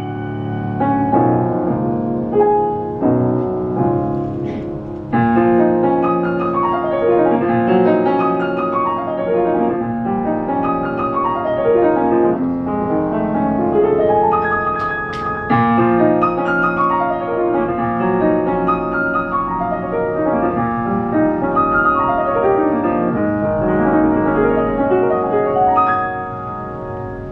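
Solo piano playing a jazz ballad, full chords with descending runs.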